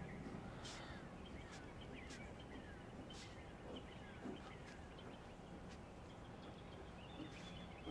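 Quiet background of birds chirping: many short falling notes. A few soft scratches of a pen drawing on a paper notepad.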